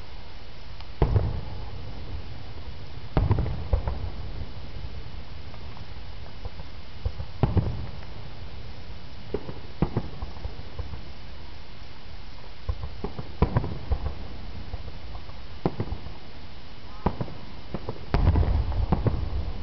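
Fireworks bursting: scattered sharp booms and cracks at irregular intervals, some trailing a low rumble, with a quick flurry of them near the end, over a steady hiss.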